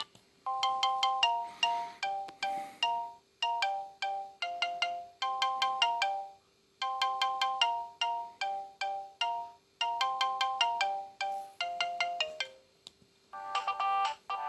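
Siemens A51 mobile phone ringtone: a melody of short, quick beeping notes whose phrase repeats four times, about every three seconds with brief gaps. Near the end a different ringtone begins.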